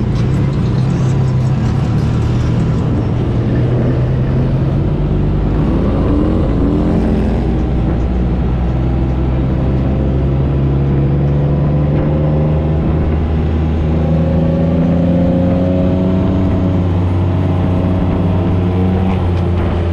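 Motorcycle engine running steadily under way, its pitch rising and falling gently with speed.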